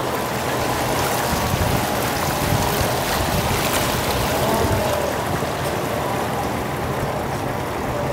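Lake shuttle boat under way: its engine runs steadily as a low rumble with a faint whine, mixed with water rushing along the hull and wind on the microphone.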